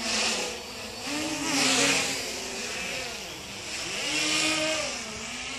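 Y6 multirotor's six brushless motors (NTM 28-26 1200kv) and 10-inch propellers buzzing in flight, the pitch swinging up and down several times as the throttle changes during acrobatic manoeuvres. A rushing hiss swells and fades with it, loudest a little under two seconds in.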